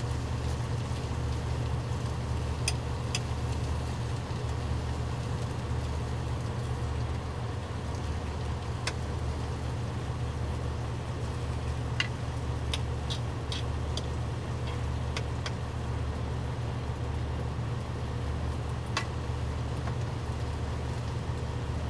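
Parked semi truck's diesel engine idling, a steady low hum. Over it, scattered sharp pops from turkey bacon frying in a pan.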